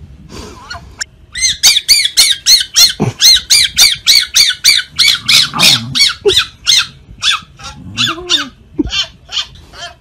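Fennec fox chattering in play: a rapid run of short, high-pitched squeaky chirps, about three or four a second, starting about a second in.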